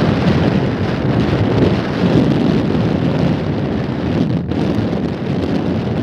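Wind buffeting the microphone of a camera held on a moving vehicle: a steady, loud rumbling rush, with a brief dip about four and a half seconds in.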